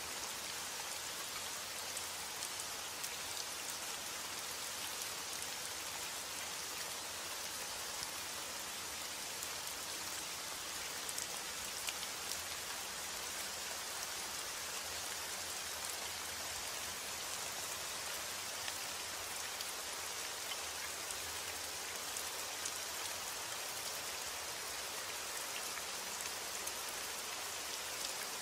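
Heavy rain falling on a window: a steady, even hiss with scattered taps of single drops.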